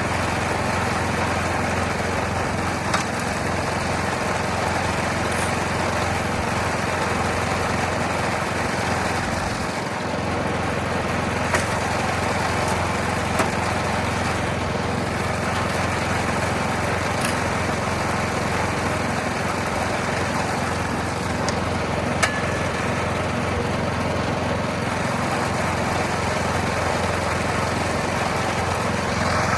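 Trommel wash plant running: a steady drone of its drive motor, with gravel churning through the turning drum and a few sharp clicks.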